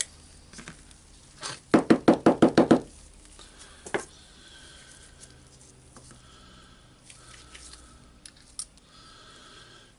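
Small metal parts of a Hilti SF4000 screw gun's gear and clutch assembly being handled on a workbench. A quick run of about nine knocks comes around two seconds in, then a single click, then faint light clinks.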